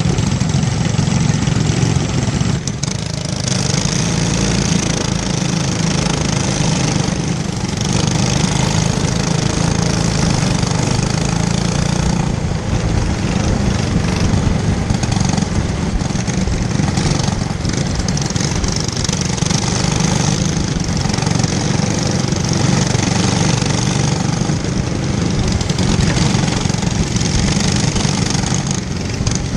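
Racing kart engines running steadily and loud on a dirt track, with brief dips every few seconds.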